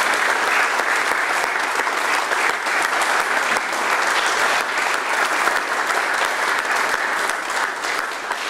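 A room of people giving a standing ovation, steady sustained applause of many hands clapping.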